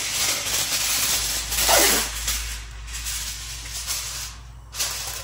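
A sheet of aluminium kitchen foil crinkling and rustling as it is handled, loudest about two seconds in and easing off near the end.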